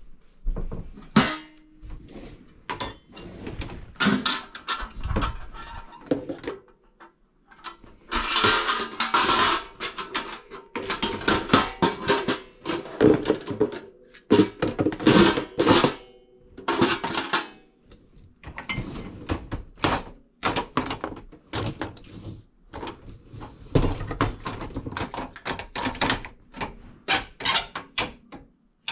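Dishware clattering in a dishwasher's wire racks: a glass baking dish, crockery and a metal grater knocking against the racks and each other as they are handled, in long runs of clinks and knocks.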